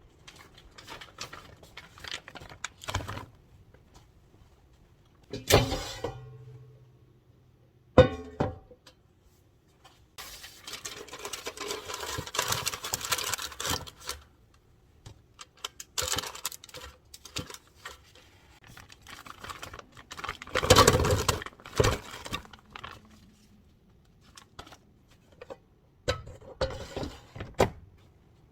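Intermittent knocks and clatter of objects being handled, with a few seconds of continuous rustling about ten seconds in and a louder cluster of knocks near two-thirds through.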